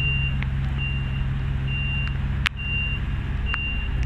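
A flatbed lorry's reversing alarm beeps steadily about once a second over its running engine, the sign that the lorry is backing up. There is one sharp click midway.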